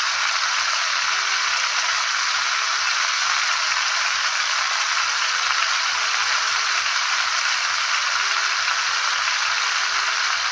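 Corned beef brisket searing in oil in a very hot skillet: a steady, even sizzle.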